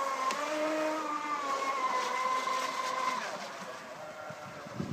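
Brushless electric motor of a Seafire RC speedboat whining at high speed, a steady high tone that drops in level after about three seconds as the boat runs away across the water. A brief knock at the very end.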